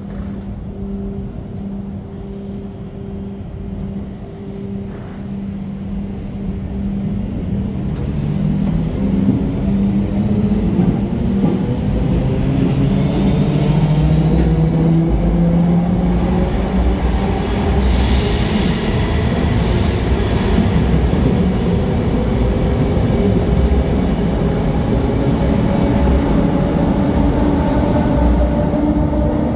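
ÖBB class 4020 electric multiple unit pulling away from the platform. At first it hums steadily while standing; from about eight seconds in, a rising whine builds as it accelerates, with growing wheel and running noise. A brief high wheel squeal comes around the middle.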